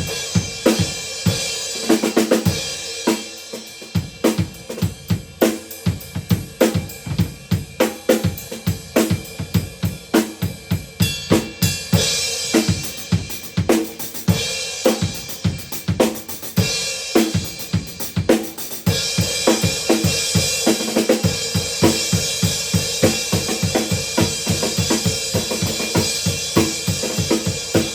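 Drum kit played in a steady groove: kick, snare and hi-hat, with a Sabian AA 18-inch Rock Crash cymbal struck for crashes. From about two-thirds of the way in, a continuous cymbal wash sits under the beats.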